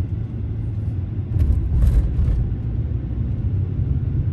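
Car road noise heard from inside the cabin while driving: a steady low rumble of engine and tyres. It swells into a louder rush for about a second, a second and a half in.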